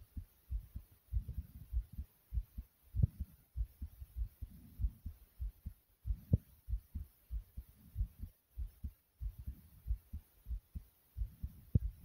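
A fast human heartbeat, heard as a quick run of low thumps, about two to three a second.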